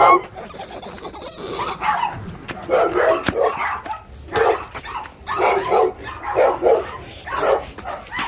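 A dog barking over and over, about once a second.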